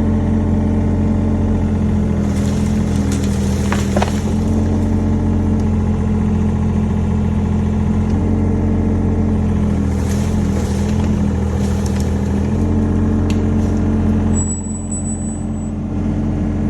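Mini excavator's diesel engine running steadily under hydraulic work, with a few sharp knocks, and briefly quieter near the end.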